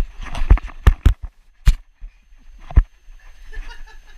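A puppy scrambling and thrashing about: a quick run of sharp knocks and thumps in the first three seconds, then quieter.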